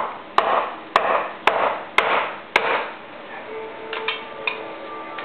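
A hammer striking the wooden laminated beam header: six sharp blows, about two a second, each with a short ring. The blows stop about halfway through.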